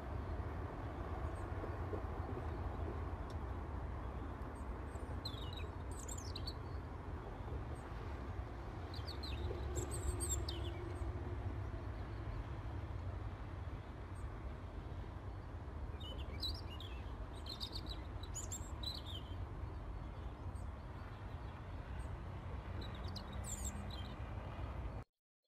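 Small birds chirping in short high bursts several times over a steady low outdoor rumble; all sound cuts off just before the end.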